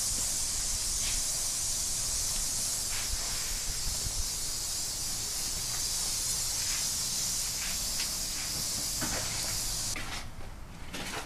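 Air-fed stucco hopper gun spraying cement stucco onto a wall: a steady, loud hiss of compressed air and material that cuts off abruptly about ten seconds in, followed by a few light knocks.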